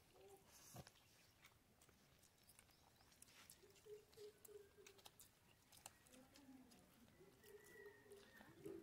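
Faint: soft scattered ticks of fingers working cooked rice on a dry leaf plate, and twice a run of short pitched calls, about four seconds in and again near the end.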